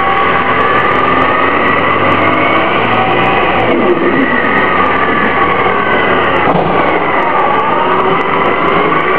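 2004 Orion VII bus's Detroit Diesel Series 50G compressed-natural-gas engine and ZF Ecomat automatic transmission running while the bus is under way. It makes a steady mechanical sound with whining tones that slide up and down in pitch. The tone changes abruptly twice, about a third and about two-thirds of the way in.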